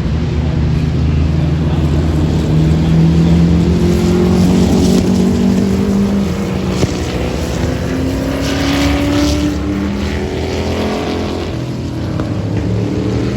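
Vintage racing car engine accelerating. Its pitch climbs, drops back about halfway through, then climbs again.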